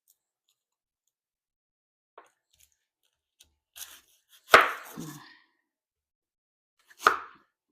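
Kitchen knife cutting a red onion on a cutting board: a few light taps, then two sharp knife strikes on the board about two and a half seconds apart, the first the louder.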